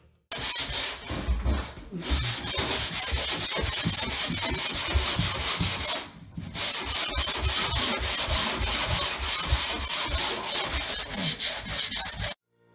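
Hand sanding block rubbed back and forth over drywall joint compound on a wall, in quick repeated strokes, stopping briefly about six seconds in.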